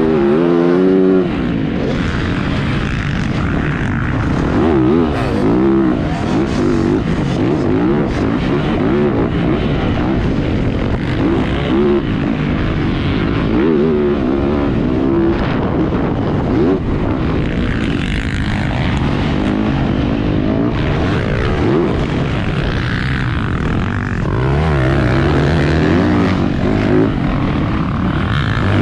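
Motocross dirt bike engine riding a track, its pitch repeatedly climbing under throttle and dropping off, with wind rushing over the microphone.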